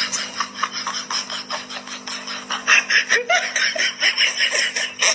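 A person laughing in quick, rapid bursts, getting louder about two and a half seconds in.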